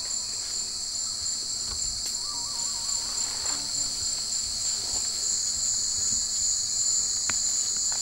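Rainforest insect chorus: a steady, high-pitched buzzing and trilling held level throughout, with a faint short wavering call about two seconds in.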